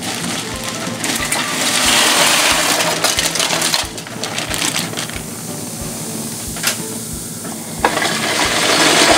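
Ice cubes poured from a plastic bag into a cauldron of carbonated punch, clattering and crunching against each other and splashing into the liquid, with the bag rustling. Later hands stir through the floating ice, with a couple of sharp clicks.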